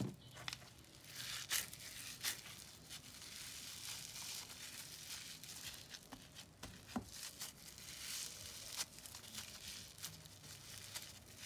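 Foam-bead crunch slime squeezed and pressed by hand, the foam beads giving a faint, irregular crackle of many small clicks. The slime is over-activated and hard, so it crumbles apart instead of stretching.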